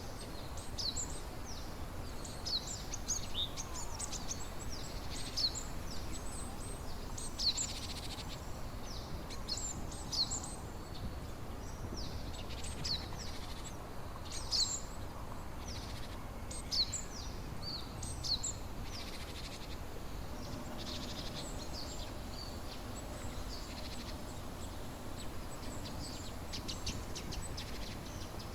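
Small birds chirping busily, many short high chirps in quick succession that thin out after about two-thirds of the way through, over a steady low background rush.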